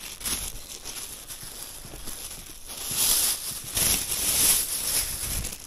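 Thin plastic produce bag rustling and crinkling right against the microphone, growing louder in the second half.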